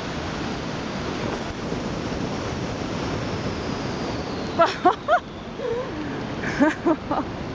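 Rushing wind on the microphone during a paraglider spiral dive, a steady noise throughout. About two thirds of the way in, a few short, sharply rising and falling cries from the riders cut through it.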